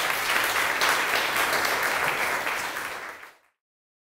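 Audience applauding, a dense patter of many hands clapping that fades and cuts off about three and a half seconds in.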